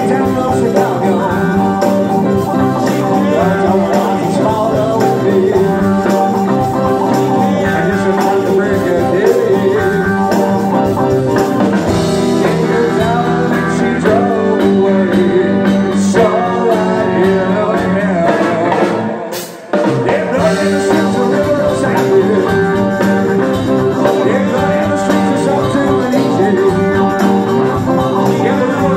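Live rock band playing amplified through a PA: electric guitar, bass guitar, drum kit and keyboard over a steady beat. The sound drops out briefly about two-thirds of the way through.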